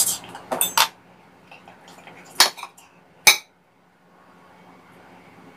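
Metal knife and cutlery clinking against a plate while cutting into a steamed kabocha squash: about five sharp clinks in the first three and a half seconds, the last two the loudest.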